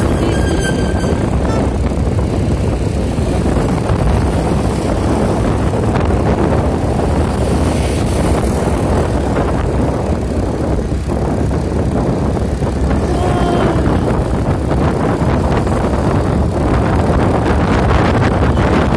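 Steady, loud rumble of travelling on the move, with wind on the microphone. Two brief pitched sounds cut through, one just after the start and one about thirteen seconds in.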